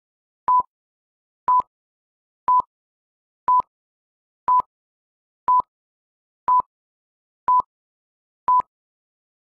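Countdown timer beeps: a short beep of one steady pitch once a second, nine times, with silence between them.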